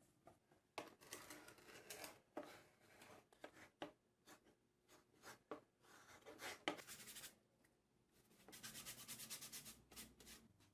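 Hand scraping and rubbing on wood: irregular strokes with a few sharp clicks, then a quick run of rapid, even rubbing strokes near the end.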